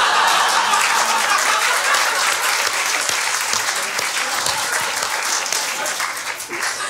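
Audience applause, many hands clapping, mixed with laughter at first, slowly dying away toward the end.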